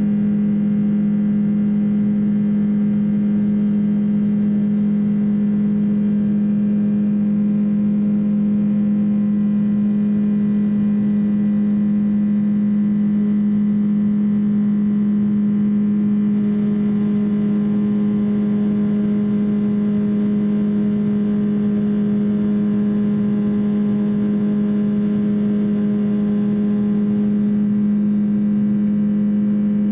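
Steady cabin drone of a Boeing 767-300's twin turbofan engines climbing out after takeoff: a strong low hum with a constant tone over rushing airflow noise. About halfway through, a little more high hiss comes in for around ten seconds.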